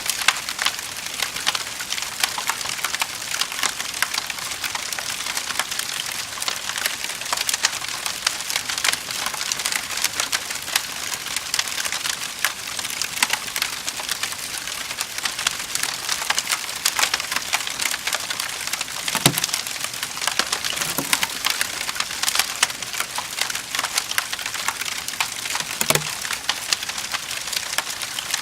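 Wood fire in a fireplace crackling steadily with a dense stream of small snaps. A few louder pops come in the last third.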